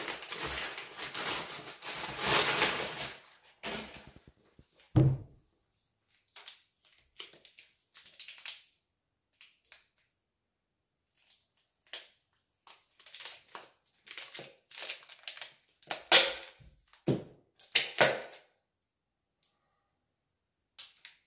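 Brown kraft packing paper crumpled and rustled for about three seconds, then scattered handling noises as the parcel's contents are taken out: a low thunk about five seconds in, and intermittent crinkles and knocks with quiet gaps between them.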